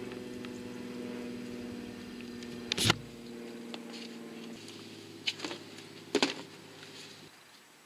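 A steady low mechanical hum that starts abruptly, shifts in tone about halfway through and cuts off near the end, with a sharp knock about three seconds in and two lighter knocks around five and six seconds.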